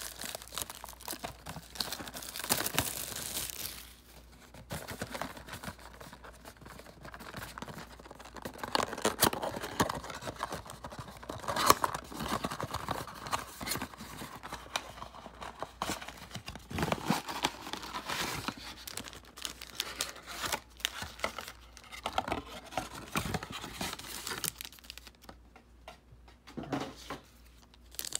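Plastic wrapping on a trading-card mega box and its card packs being torn open and crinkled, in irregular bursts of tearing and rustling with short pauses.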